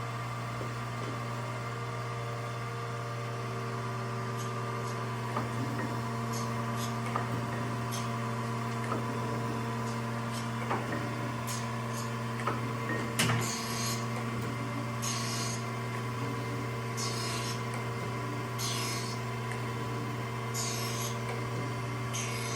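Acer AGS-1224-AHD hydraulic surface grinder running with a steady spindle-motor hum. From about halfway through, a short grinding hiss comes about every two seconds as the wheel passes over the workpiece on each stroke of the hydraulic table, with one sharper knock among them.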